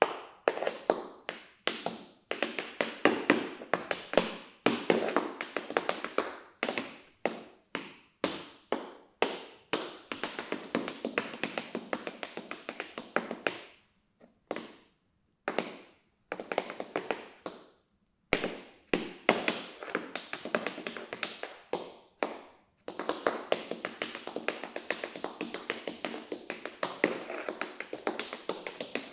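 Tap shoes' metal taps striking the floor in an unaccompanied tap improvisation, with no music. Quick runs and syncopated bursts of taps thin out to a few scattered strikes and short pauses around the middle, then pick up into a fast, almost unbroken stream of taps near the end.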